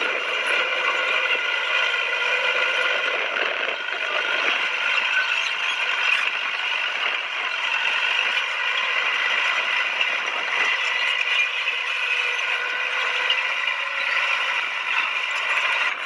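Crawler bulldozer running, with a steady mechanical clatter and rattle from its steel tracks and running gear.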